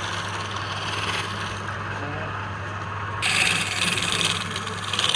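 Wood being worked on a running woodturning lathe: a steady motor hum under continuous scraping of the spinning wood, which grows louder and harsher about three seconds in.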